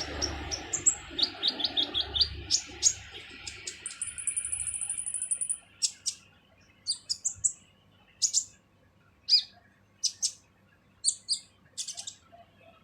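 A kolibri ninja sunbird calling in harsh, sharp high chirps, fast and close together at first. About four seconds in comes a rapid, very high trill lasting a second and a half, then single and paired harsh chirps spaced about a second apart.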